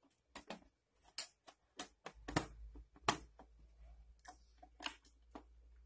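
Small metal tin being closed and handled: a string of irregular light clicks and taps, the two loudest about two and a half and three seconds in.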